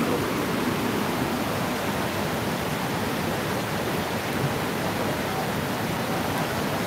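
Fast-flowing mountain river rushing over rocks in white-water rapids, a steady, even wash of water noise.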